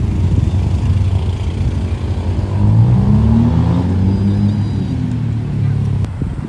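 Ferrari F8 Spider's twin-turbo V8 pulling away and accelerating, its engine note climbing in pitch a few seconds in, then running on as the car drives off.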